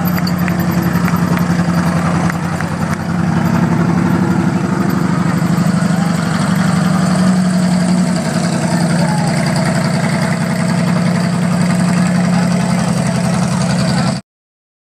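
M4 Sherman tank's engine running loudly and steadily with a fast, even firing beat as the tank drives slowly past. The sound cuts off suddenly near the end.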